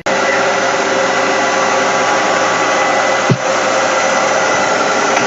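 Robot vacuum running, a loud, even motor whir with a steady whine that starts abruptly and holds steady throughout, with a brief dip about three seconds in.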